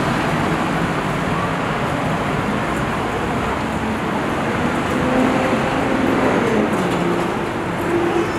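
Steady road traffic noise along a busy city street.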